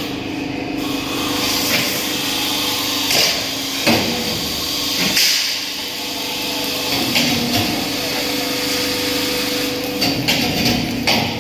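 Metal fabrication workshop noise: a steady machine hum with irregular knocks and clanks every second or so.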